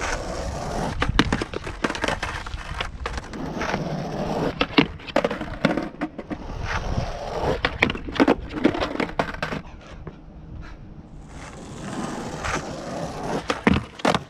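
Skateboard wheels rolling on asphalt in repeated runs, broken by sharp wooden clacks as the board is popped, the nose strikes the edge of a box and the wheels land back down: attempts at a backside noseslide that catch in a nose stall rather than sliding.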